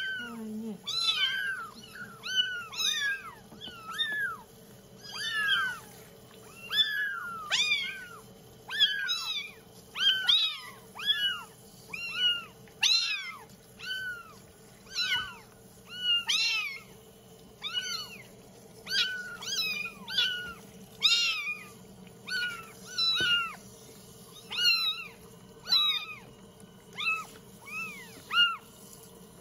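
Several young kittens mewing, short high cries that rise and fall, about one or two a second and often overlapping, as they are shampooed wet in a tub.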